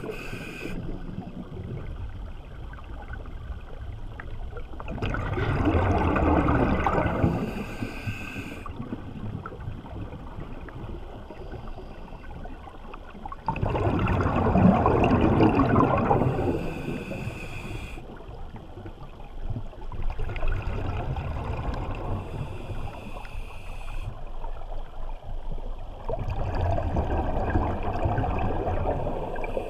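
Scuba diver breathing through a regulator, heard underwater: a swell of bubbling exhaust about every eight seconds, with a steady rush of water between breaths.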